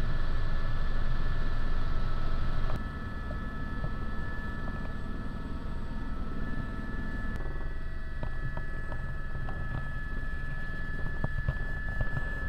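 Helicopter cabin noise: a steady drone from the rotor and turbine with a steady high whine over it, dropping suddenly in level about three seconds in. A few faint ticks in the second half.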